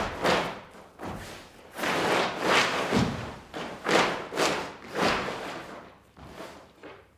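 Large sheets of paper crunching and rustling as they are stamped on and kicked across a wooden stage floor, with a thud at each stomp, about two a second, dying away near the end.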